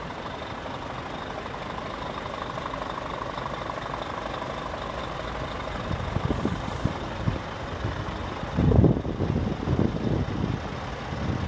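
Wind buffeting the microphone in irregular low gusts from about six seconds in, loudest just before nine seconds, over a steady background hum.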